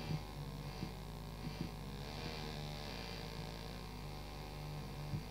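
Experimental noise soundtrack: a steady low electronic hum with a droning tone that cuts in and out and a few faint clicks.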